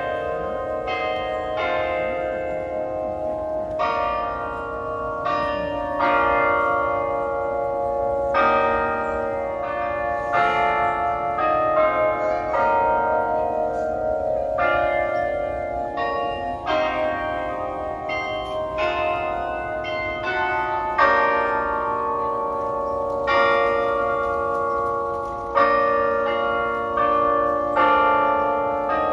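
The Delacorte Musical Clock's bells playing a melody: tuned bell notes struck one after another, about one or two a second, each ringing on under the next.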